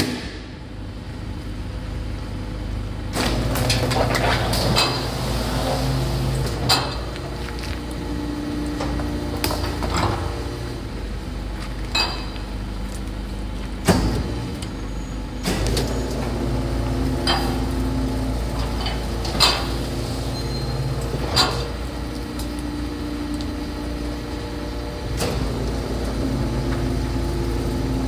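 Rotary-plate garbage truck packing: the engine hums steadily while a hydraulic whine comes and goes as the rotating plate cycles. Sharp metallic clanks ring out every couple of seconds.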